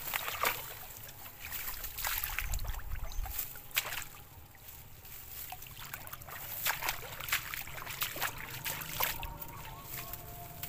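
A person wading and moving through shallow floodwater: irregular sloshing and splashing, with many sharp crackles and rustles throughout and a low rumble of water a few seconds in.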